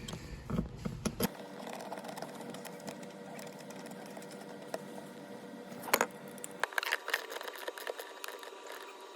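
Socket ratchet wrench clicking in quick runs as a bolt is turned down, with a few louder metal clicks.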